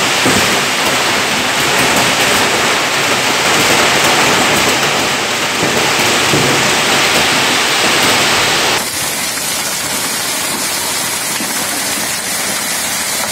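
Hailstorm: hail and heavy rain pelting down steadily. About nine seconds in, the sound changes abruptly to a duller downpour with less hiss.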